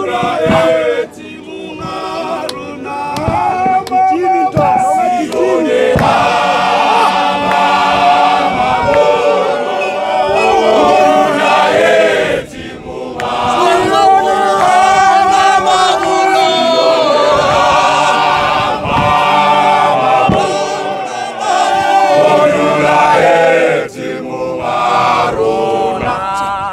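A large men's choir, a Zion Christian Church mokhukhu group, singing a cappella in full harmony, in long phrases with brief pauses between them.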